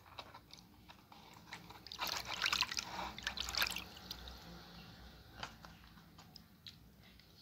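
A hand swishing and stirring water in a plastic basin to dissolve salt, with light sloshing and trickling, loudest from about two to four seconds in.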